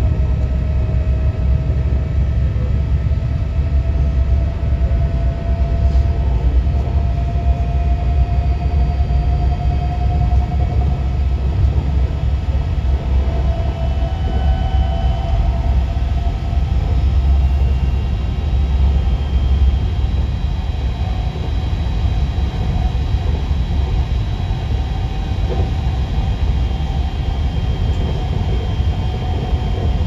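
BM 72 electric multiple unit standing still with its onboard equipment running: a steady low hum and rumble, with a faint whine that rises slowly in pitch over the first ten seconds or so.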